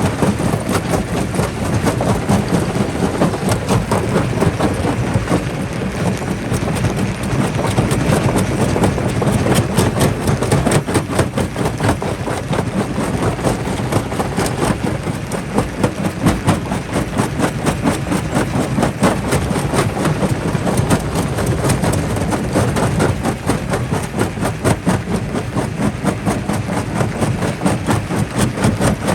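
Rock jaw crusher running under load: a steady heavy rumble with continuous, dense cracking and clattering of rock breaking in the jaws.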